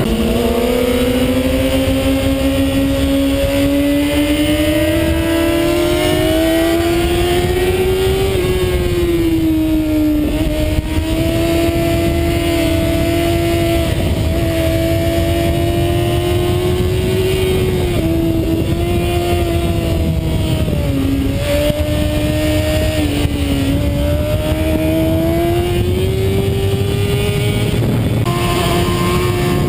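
Sport motorcycle engine running hard at high revs at track speed, with heavy wind noise over the onboard camera. The engine pitch climbs steadily for the first eight seconds, then holds high with a few brief dips and rises as the throttle is eased and reopened.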